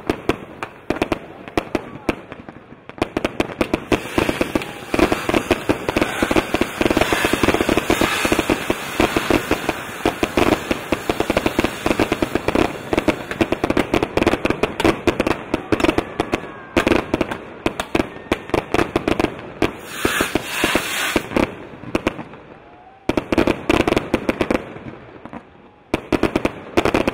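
Fireworks display: a rapid, near-continuous barrage of bangs and crackling, with short lulls about three seconds in and near the end.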